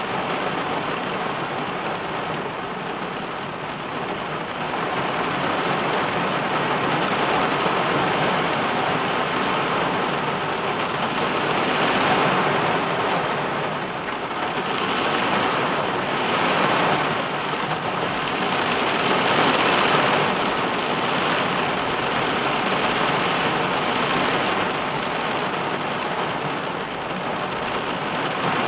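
Heavy rain drumming on a car's roof and windscreen, heard from inside the car: a dense, steady downpour that swells and eases in waves several times as gusts drive it.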